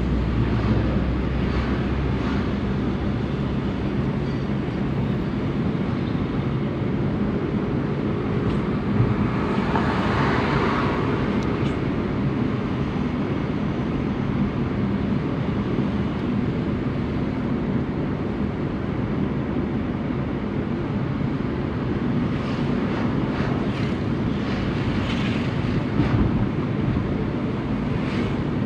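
A 2006 Suzuki APV's engine running steadily, with a brief rise in the sound about ten seconds in.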